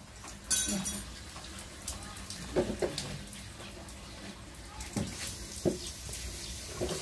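Live pale chub flapping in a clear plastic basin, giving a handful of short, sharp wet slaps and taps against the plastic spread over several seconds.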